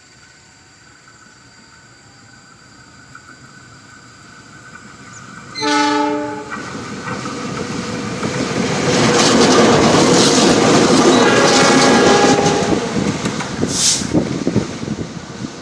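Diesel locomotive train approaching and passing close by. The rumble grows, a horn sounds one blast of about a second some six seconds in, and then the locomotive and wagons go past loudly with wheels clattering on the rails, easing off near the end.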